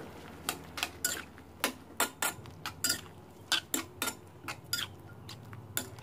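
A spatula knocking and scraping against a wok while shrimp and squid are stirred into the gravy. The knocks are sharp and irregular, about two or three a second.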